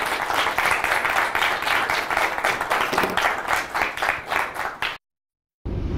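Small audience applauding, many hands clapping fast and steadily for about five seconds, then cut off suddenly. After a brief silence a low rushing noise starts near the end.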